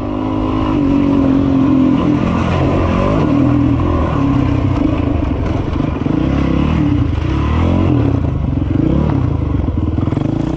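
Honda 450X single-cylinder four-stroke dirt bike engine under way, its pitch rising and falling again and again as the throttle is worked.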